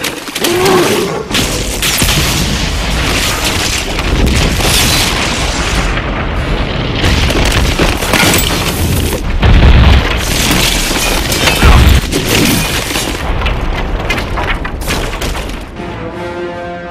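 Film-style explosion sound effects: a long, heavy rumbling blast with music under it. The two loudest booms come about ten and twelve seconds in, and the blast dies away near the end, leaving the music.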